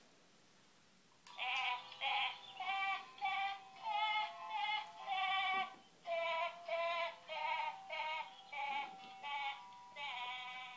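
Lulla-Baah Timmy plush sheep toy playing its lullaby: a high electronic voice sings a slow tune in a string of short, wavering notes, starting about a second in.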